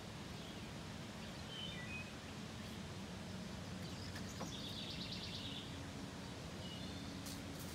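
Faint outdoor ambience with a steady low hum, over which small birds give a few short high chirps and, around the middle, a quick chirping trill. A few faint clicks come near the end.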